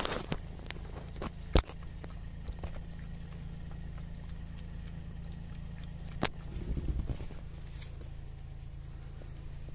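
Cat eating from a plastic bowl: a few sharp clicks, the loudest about a second and a half in, and a short patch of soft rustling about seven seconds in, over a low steady hum and a faint steady high tone.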